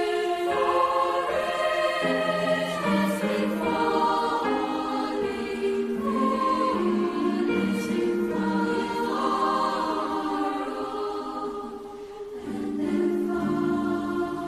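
Mixed-voice youth choir singing sustained, shifting chords in parts. It grows softer about twelve seconds in, then swells again.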